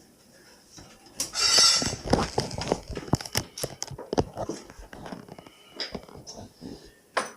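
Kenmore dishwasher being lowered and shifted: a scrape about a second in, then a run of irregular knocks and clunks, ending with one sharp knock near the end.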